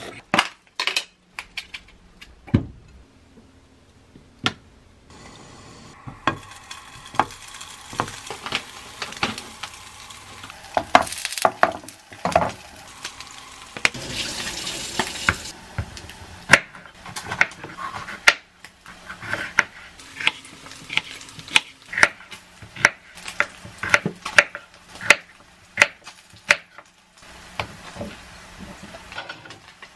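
Kitchen knife cutting bell peppers on a wooden cutting board, with pieces dropped into a ceramic bowl: irregular sharp knocks, about one or two a second in the second half, over a steady hiss that lasts several seconds in the middle.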